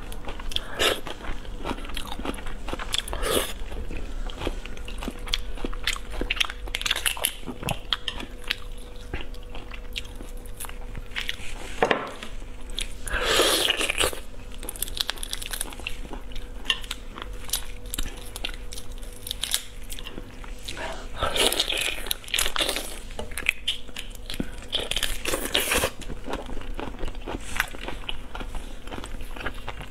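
Close-miked eating of seafood: biting, crunching and chewing in many short clicks and crackles. About 13 seconds in there is a louder crackling burst as a piece of shellfish is pulled apart by hand, and there are more bursts a little after 20 seconds.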